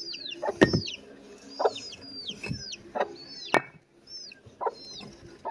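Chicks peeping over and over in short, high, falling calls, with hens clucking and a few sharp knocks.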